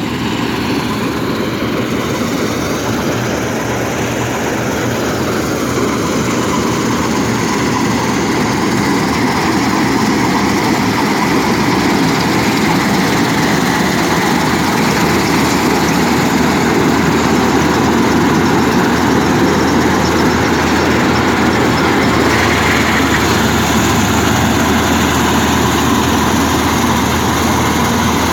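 Rice combine harvester running steadily, a continuous engine and machinery noise that grows a little louder about ten seconds in.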